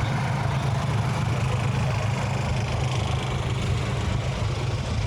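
A motor vehicle's engine idling, a steady low hum over street traffic noise.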